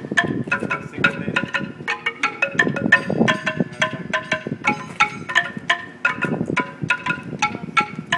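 Two players striking a large wooden-bar xylophone with sticks in an interlocking pattern: a rapid run of short, ringing wooden notes, several strikes a second.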